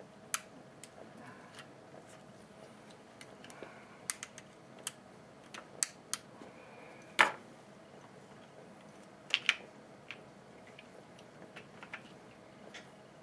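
Scattered light clicks and taps of small hedge-trimmer parts being handled and fitted by hand, irregular, with a sharper knock about seven seconds in and a quick double click about two seconds later.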